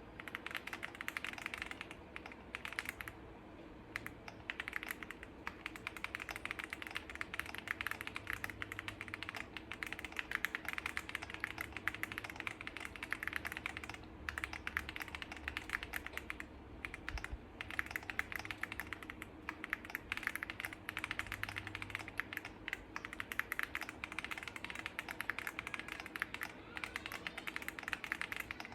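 Fast, continuous typing on a foam-filled Enter67 mechanical keyboard with WuQue brown switches and PBT dye-sub keycaps, a dense run of key clacks with a few brief pauses; the sound is meant as a soft, creamy pop.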